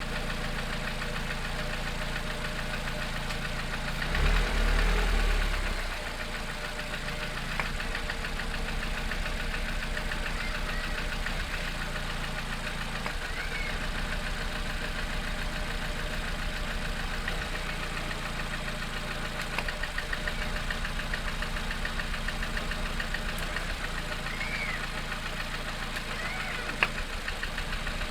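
Lada Kalina 1.4 four-cylinder engine idling warm with a fast, steady knock, which the owner suspects comes from the pistons and connecting rods (the engine also burns oil). About four seconds in there is a louder low rumble for a couple of seconds.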